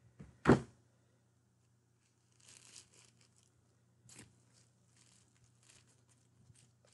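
A sharp click about half a second in, then faint, intermittent crinkling and rustling of a thin plastic wrapper as a pair of sunglasses is handled inside it.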